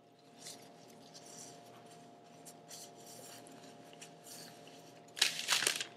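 Paper napkin rustling as greasy hands are wiped in it: faint soft rustles at first, then a louder burst of crumpling about five seconds in.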